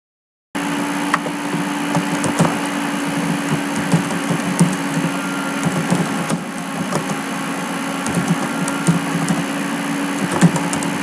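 Computer keyboard typing: scattered single keystroke clicks over a steady hiss and low electrical hum from the recording. The sound cuts in abruptly about half a second in, after dead silence.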